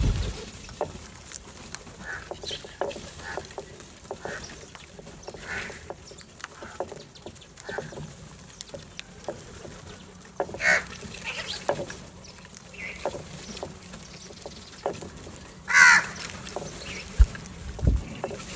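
A flock of house crows feeding at bowls. A steady scatter of short pecking taps is broken by a few wingbeats and several harsh caws; the loudest caw comes about sixteen seconds in.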